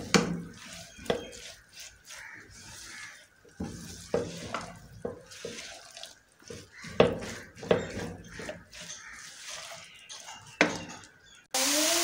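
Silicone spatula scraping and tapping on a non-stick frying pan, stirring grated radish that is being dry-fried in ghee, over a soft sizzle as the radish's water cooks off. Irregular knocks and scrapes a few times a second, and a louder steady hiss comes in suddenly near the end.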